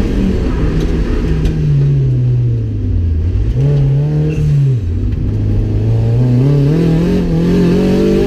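Turbocharged Mazda MX-5's four-cylinder engine heard from inside the cabin. The revs fall over the first few seconds, blip up briefly about halfway, then climb steadily near the end.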